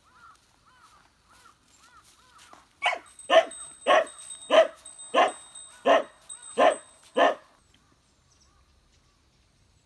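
A beagle barking eight times in a row, about one and a half barks a second, starting about three seconds in.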